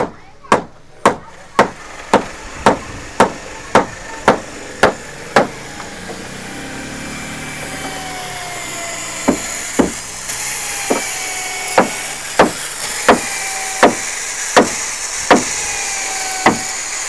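Hammer blows on the timber of a wooden fishing boat's deck, steady at about two a second. About six seconds in, an electric hand drill starts boring into the wood and runs under load, while the hammering carries on at a more uneven pace.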